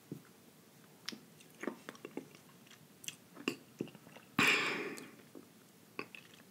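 A person chewing with small wet mouth clicks and smacks close to the microphone, working bits of corn from the teeth. About four and a half seconds in comes one louder, short burst of breathy noise.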